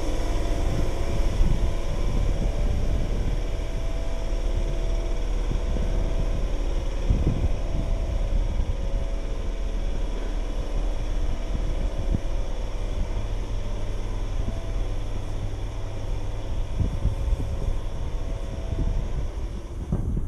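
Electric multiple-unit train standing at the platform, its onboard equipment giving a steady hum with a few held tones, over a low rumble.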